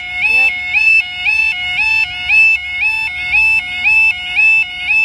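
Level crossing warning alarm sounding very loud: a two-tone yodel, a lower note stepping up to a higher one, repeating about twice a second.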